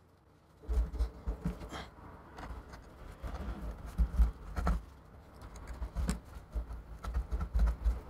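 Irregular handling noises: fingers picking and rubbing at sticky display adhesive on an iMac's aluminium housing, with scattered taps and low knocks as the computer is handled on the bench.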